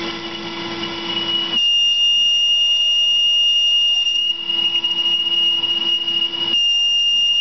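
Steel boring bar with an insert chattering in a 303 stainless steel bore on a Tormach PCNC 1100 mill turning the part in its spindle. The chatter is a loud, steady high-pitched squeal that sets in about a second and a half in, over the lower hum of the running spindle.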